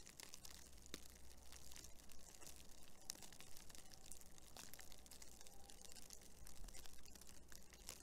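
Faint trickling water: a dense, irregular patter of tiny clicks over a low steady rumble.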